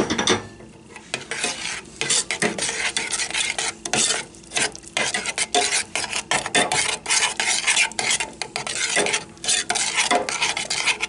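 Metal spoon stirring thick strawberry filling in a stainless steel saucepan as sugar is mixed in, scraping the pan in quick repeated strokes.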